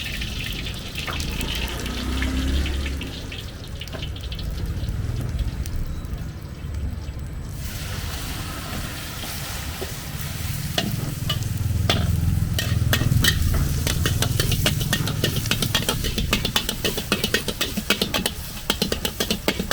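Food sizzling and frying in a hot wok, with a metal spatula scraping and clanking against the pan. The strikes come thick and fast in the second half.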